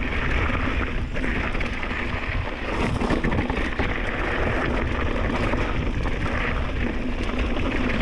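Mountain bike descending a dry, rocky dirt trail: the tyres roll and clatter over loose stones and rock steps while the bike rattles, with wind on the chest-mounted microphone.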